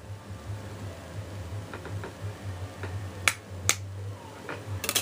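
Sharp plastic clicks from handling a Samsung Focus phone while its battery is fitted: a few faint ticks, then two louder clicks a little over three seconds in and a quick cluster of clicks near the end, over a low steady hum.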